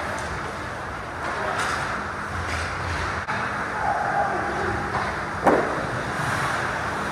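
Ice hockey game sound: skates scraping on the ice and players shouting over a steady arena din, with one sharp crack about five and a half seconds in.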